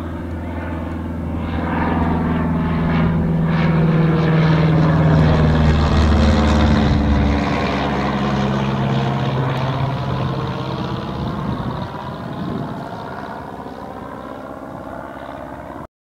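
A Cessna 152's four-cylinder piston engine and propeller at full power, flying past overhead at about 500 feet. It grows louder to a peak about six seconds in, drops in pitch as the plane passes, then fades away.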